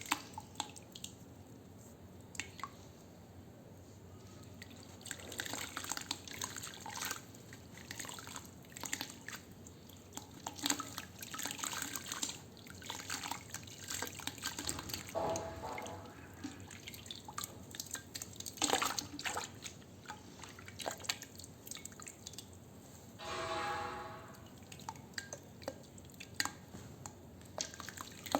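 Wet sand crumbling into water: scattered crackles and drips, with a bubbling gurgle twice, once about midway and once later on.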